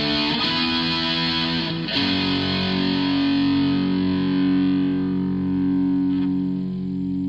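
Electric guitar played with distortion through the repaired Zoom 9002 multi-effects processor and a Peavey Bandit combo amp. A quick run of notes is followed, about two seconds in, by a struck chord that rings on and slowly fades. The effects unit passing sound shows the charge-pump capacitor repair has fixed its dead output.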